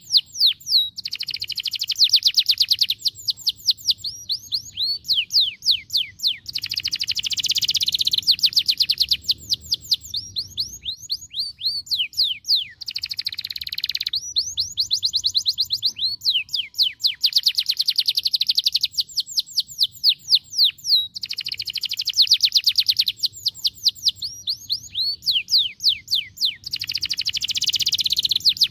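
Domestic canary singing a long song of rapid trilled phrases, each a fast run of repeated high notes, changing from one phrase to the next with only brief pauses.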